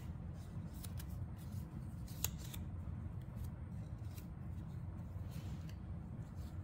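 Faint rustling and light clicking of paper raffle tickets as a hand reaches into the ticket drum, with one sharper click about two seconds in, over a steady low room hum.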